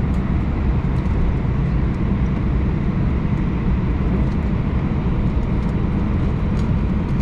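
Airbus A321 taxiing, heard from inside the cabin: a steady low drone of the engines and rolling gear, with a few faint ticks.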